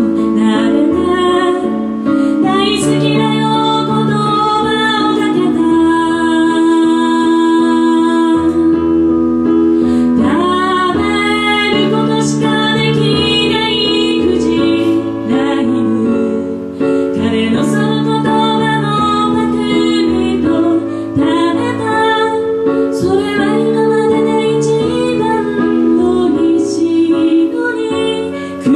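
A woman singing with held notes over her own electronic keyboard accompaniment, played live.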